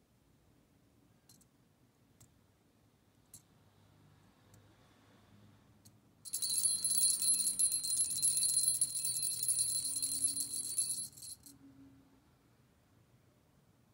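Small brass jingle bell on a fishing rig, shaken and jingling steadily with a high ring for about five seconds, starting about six seconds in after a few faint clicks.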